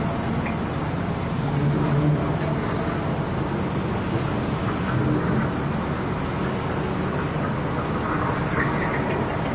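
Small electric motors and gearboxes of remote-control construction toys (excavator and dump trucks) running with a steady whirr.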